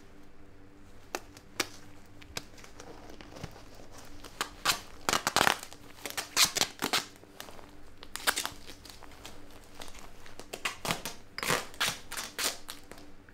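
Duct tape being ripped off the roll and wrapped round coat cuffs over rubber gloves, in short rasping rips with crinkling and rustling, in two clusters.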